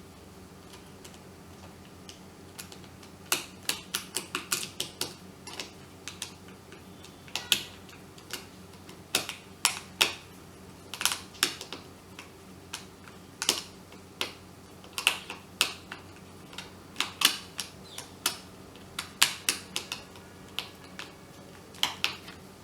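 Irregular sharp clicks and taps, coming in quick clusters, from a screwdriver driving a screw into the plastic handle cover of a travel kettle. A faint steady hum sits underneath.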